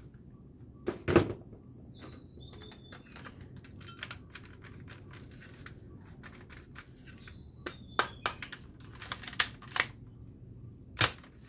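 Hard plastic toy guns being handled: scattered sharp clicks and knocks of plastic parts, sparse at first and bunched into a quick run of clicks near the end, with a few faint high squeaks of plastic rubbing.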